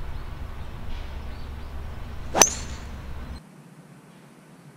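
A golf ball struck by a 2-utility (hybrid) club: one sharp click with a brief high metallic ring, about two and a half seconds in. Faint background rumble cuts off about a second later.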